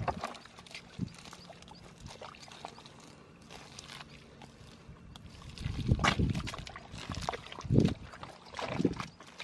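Hands and feet squelching and sloshing through thick wet mud and shallow muddy water, with a few louder splashy squelches in the second half.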